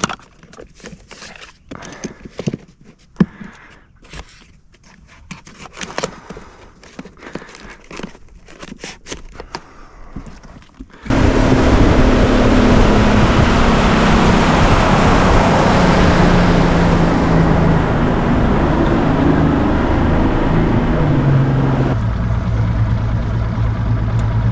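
Scattered clicks and knocks of camera gear being handled and packed into a padded case. About eleven seconds in, the boat's motor starts in loud and steady under way with wind and water rush; its pitch falls, and near the end it steps down to a lower, slower note as it is throttled back.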